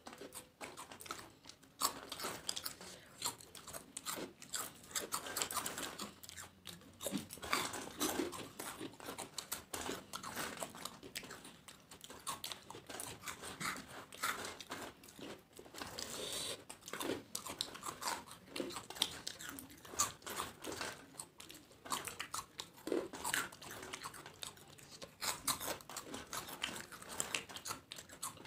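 Two people chewing and crunching crisp papad (poppadoms), with many quick, irregular crunches.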